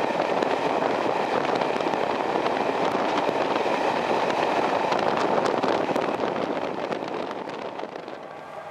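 Train running on the track: a steady rumble of wheels on rail with frequent sharp clicks, dying away over the last second or so.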